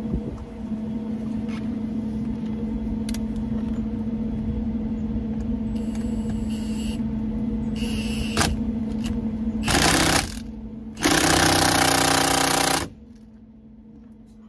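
Steady low hum, then two loud bursts of a power tool, a short one about ten seconds in and a longer one just after, driving the steering wheel's centre bolt in and tightening it down.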